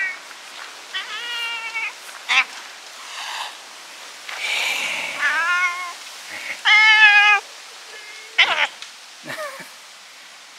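Cat meows, repeated several times: short calls and a longer, louder one about seven seconds in.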